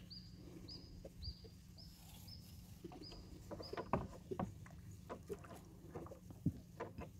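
A small bird calling one short high note over and over, about twice a second. Scattered knocks of a bamboo pole against the boat, the loudest about four seconds in.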